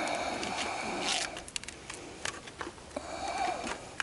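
Plastic modular conveyor belt links being handled and slid into place. A scraping slide lasts about the first second, light scattered clicks follow, and a second, shorter scrape comes about three seconds in.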